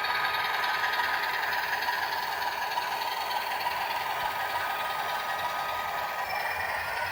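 HO-scale shark-nose diesel model locomotives running steadily. An MRC DCC sound decoder plays an Alco diesel prime-mover sound through a small speaker, over the whir and rattle of the three-pole motors and gears.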